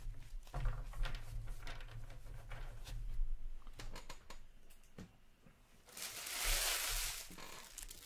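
Hockey trading cards being handled, with light clicks and rustling as they are flicked and shuffled by hand. About six seconds in there is a louder rustling scrape lasting about a second.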